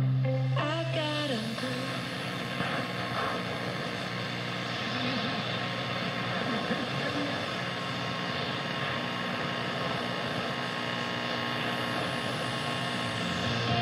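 Kraco KID-581H AM car radio tuned between stations: steady static hiss with faint whistling tones. About a second in, a falling whistle sweeps down as a music station tunes out. At the very end, a station with music comes back in.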